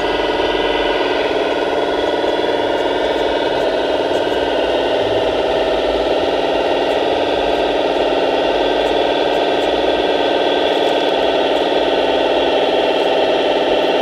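Radio-controlled Bobcat compact track loader model working, with a steady mechanical whine from its motors as it lifts a loaded bucket.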